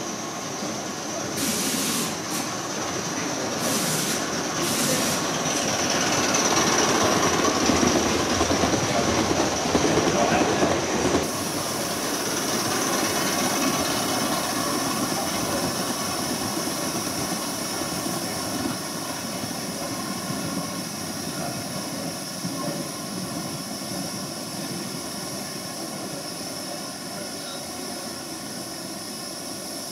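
Model trains running on the layout track, with wheels rolling over the rails and the motor running. The sound grows louder as a train comes close, changes abruptly about eleven seconds in, then settles to a steadier running sound that slowly fades as a Pendolino model passes.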